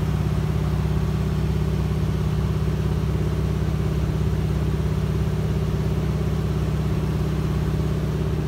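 DHC-2 Beaver floatplane's engine and propeller running at a steady cruise drone, heard from inside the cabin.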